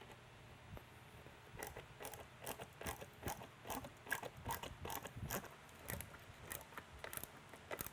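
Phillips screwdriver turning a screw into a strobe beacon's base to cinch the plastic dome down: a run of small, irregular clicks that starts about a second and a half in.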